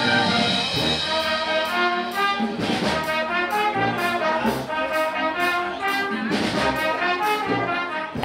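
Brass band playing, trumpets and trombones carrying a tune over a steady percussion beat.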